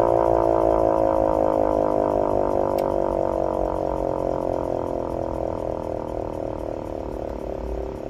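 S-28 siren winding down: its wail slides slowly lower in pitch and fades steadily.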